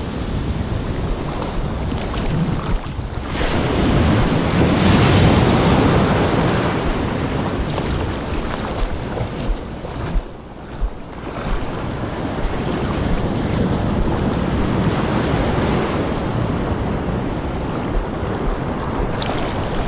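Small surf waves washing and foaming over the shallows, the wash swelling and ebbing as each wave comes in, loudest about five seconds in and briefly quieter about ten seconds in.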